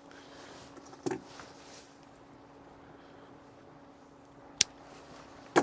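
Small handling noises from working on wire connectors: a click about a second in, a short sharp click near the end and a louder knock right at the end, over a faint steady hum.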